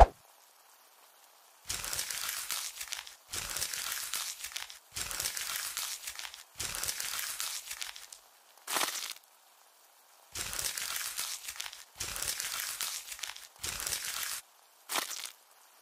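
ASMR foley of crisp crinkling and crunching, standing in for a knife scraping worms out of a wound. It comes in about seven even bursts of roughly a second and a half each, with a sharp click at the very start and two short swishes.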